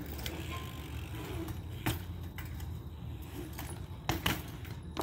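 BMX bike rolling on concrete, its tyres giving a steady low rumble under a light metallic rattle from the bike. There is a sharp clack about two seconds in and louder knocks about four seconds in as the bike hits the concrete steps.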